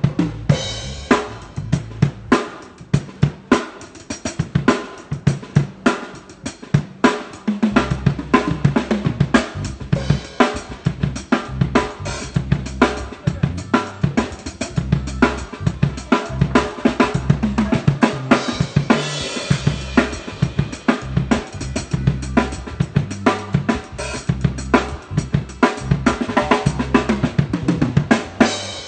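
Acoustic drum kit playing a rai and reggae groove: kick drum, snare and cymbals in a steady rhythm. Low sustained notes run underneath for much of it.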